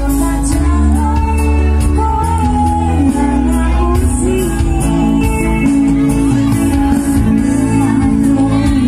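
Loud live band music through PA loudspeakers: a woman singing into a microphone over an electronic keyboard, hand drums and heavy bass.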